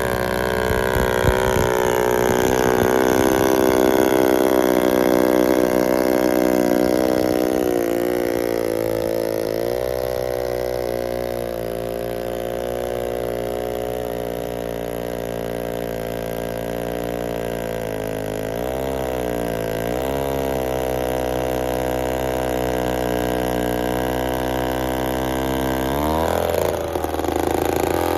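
Old Titan two-man chainsaw's engine running loud and steady, its speed sagging and picking back up a couple of times and shifting abruptly near the end.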